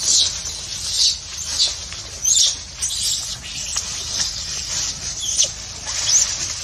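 Baby macaque giving short high-pitched squeaks, repeated about once a second, over soft rustling of dry leaves.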